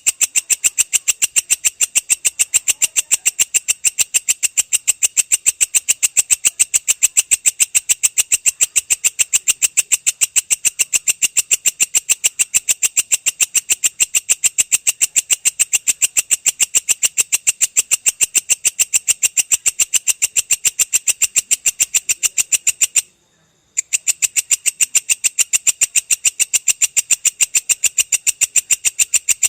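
Belalang kecek (a singing katydid) calling in a long, rapid, evenly spaced train of high, sharp chirps, several a second, with a sudden break of under a second about 23 seconds in.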